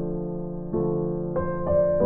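Soft background piano music: sustained chords, with new notes struck about two-thirds of a second in and twice more near the end.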